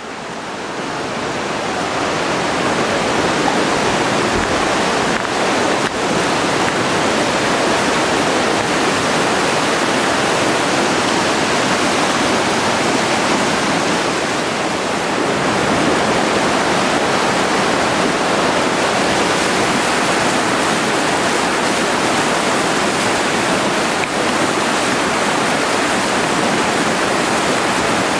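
Fast river rushing over rapids: a loud, steady white-water rush, growing louder over the first few seconds.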